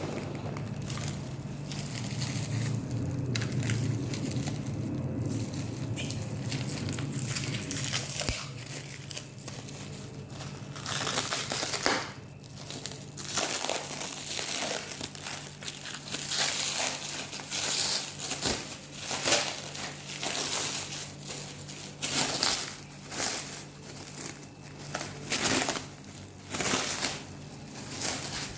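Plastic packaging crinkling and rustling in irregular bursts as it is handled, over a low steady hum that is strongest in the first few seconds.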